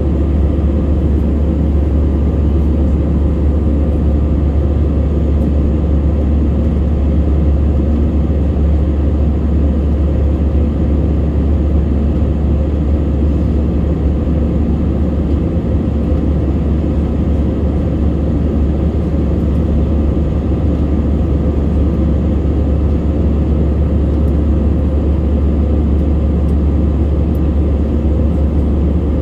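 Jet airliner cabin noise in flight: a loud, steady low rumble of engines and rushing air, with a faint steady whine above it.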